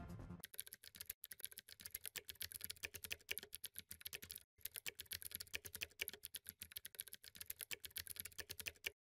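Computer keyboard typing sound effect: a fast, quiet run of light key clicks, with a short break about four and a half seconds in, stopping just before the end.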